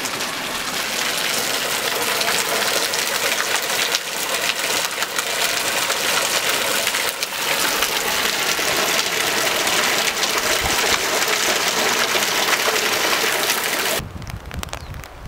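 Hot spring water pouring and splashing into a stone bathing pool: a steady, dense rush that cuts off abruptly about fourteen seconds in.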